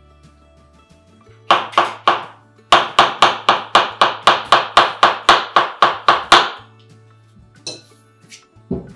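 Knife slicing button mushrooms on a plastic cutting board: a few chops, then a quick even run of sharp chops at about four a second, and a few more near the end. Faint background music underneath.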